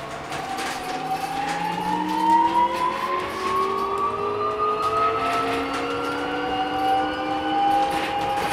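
BYD K9M electric bus's in-wheel traction motors whining as the bus pulls away and gathers speed: several tones rise together in pitch for about five seconds, then hold level. Underneath are road noise and interior rattles.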